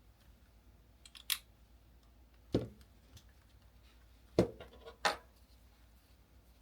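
Four separate clicks and knocks of small hard objects being handled and set down on a work surface, spread through a few seconds over a quiet background.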